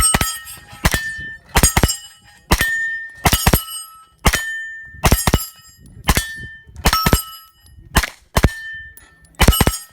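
A rapid string of gunshots at steel targets, about a dozen sharp reports a half-second to a second apart. Most are followed by the ringing clang of a steel plate being hit.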